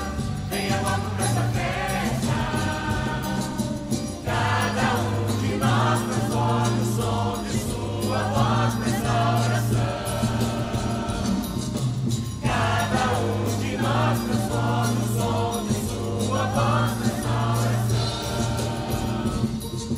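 Choir singing with instrumental accompaniment, in phrases over steady low sustained notes.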